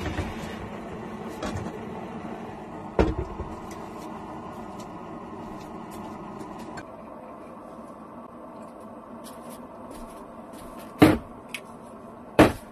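Portable cassette gas stove burner running steadily under a lidded pot, a low, even rushing flame that slowly fades. There is a sharp knock about three seconds in and two loud knocks near the end as glass jars are handled on the counter.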